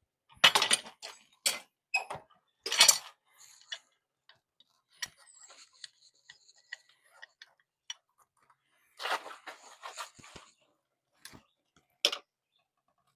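Scattered clanks and scrapes of metal blacksmithing tools and stock being handled at the forge, a handful of sharp knocks with quiet gaps between them.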